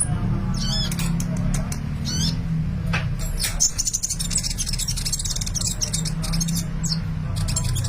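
A sunbird singing in fast, high-pitched chirps and twittering trills, with wavy whistled notes in the first two seconds and a long buzzy trill from about three and a half to seven seconds in, over a steady low hum.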